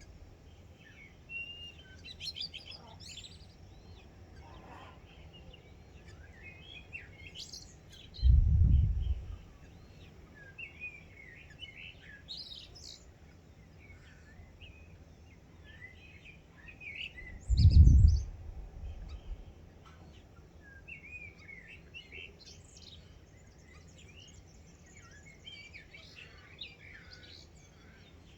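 Morning chorus of many birds chirping and calling over one another, with short whistles that slide up and down in pitch. Two brief low rumbles, each about a second long and about nine seconds apart, are the loudest sounds.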